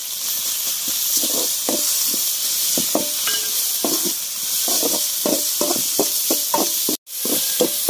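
Onions, tomato and ginger-garlic paste sizzle in hot oil in a large metal kadai while a metal ladle stirs them, scraping and knocking against the pan two or three times a second. The sound cuts out for an instant near the end.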